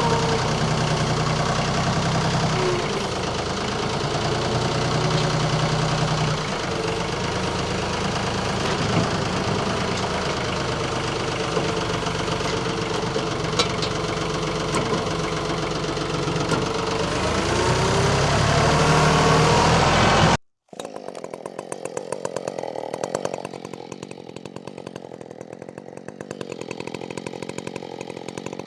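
A compact diesel tractor engine running under load, its pitch rising and falling a few times as it revs. About twenty seconds in it cuts off suddenly and is replaced by a quieter, evenly pulsing two-stroke chainsaw.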